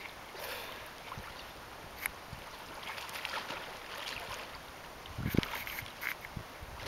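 Splashing of a pudelpointer puppy and a man swimming through a shallow river, over the wash of flowing water, with a louder thump about five seconds in.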